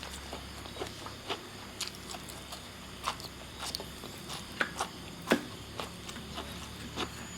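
A person chewing and biting into grilled village chicken: irregular wet smacks and small clicks of eating, the sharpest about five seconds in.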